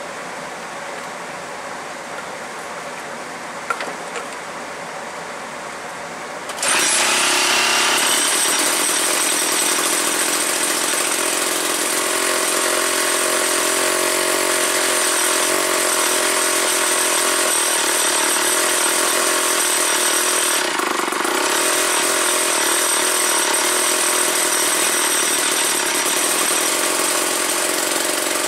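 Steady hiss, then about six and a half seconds in the two-stroke engine of an old McCulloch 250 chainsaw bursts into life, rising briefly in speed and then running on steadily, with a short dip about two-thirds of the way through.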